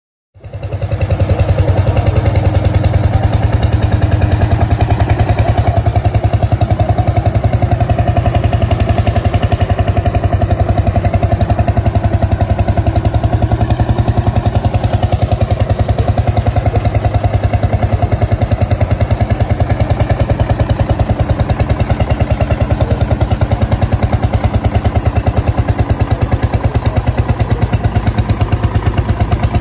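Vintage tractor engine running steadily with an even, rapid beat, cutting in suddenly about half a second in and holding the same pace throughout.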